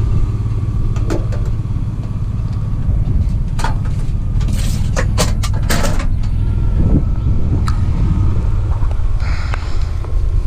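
Van running with a steady low rumble and a faint steady whine. A cluster of sharp clicks and rattles comes about four to six seconds in, and a short hiss near the end.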